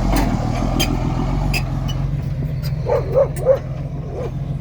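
A motor vehicle's engine running steadily, with a dog barking four times in quick succession about three seconds in.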